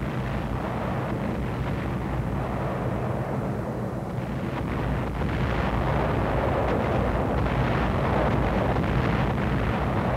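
Continuous heavy rumble of bomber engines mixed with bomb explosions on an old film soundtrack, swelling somewhat louder about halfway through.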